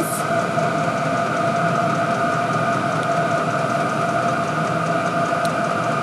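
Two portable all-in-one diesel air heaters running at full power: a steady mechanical hum of their combustion and blower fans with a constant whine over it.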